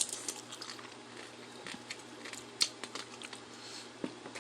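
Scattered sharp clicks and cracks of lobster and crab shells being broken open and eaten, the loudest crack right at the start and another about two and a half seconds in.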